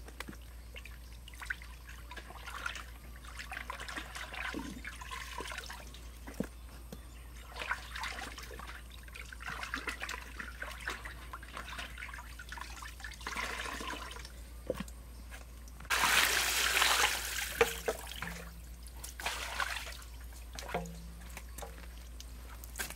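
Water splashing and dripping in a metal basin as whole raw chickens are washed by hand and lifted out to drain, in irregular bursts with the loudest splash about two-thirds of the way through.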